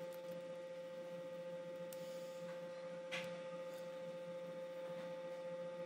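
Steady electrical hum with one constant tone and a few fainter ones above and below it, and a single laptop keyboard keystroke click about three seconds in.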